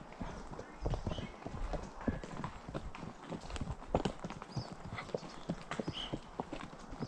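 Horses' hooves clip-clopping on the trail, a run of uneven hoofbeats.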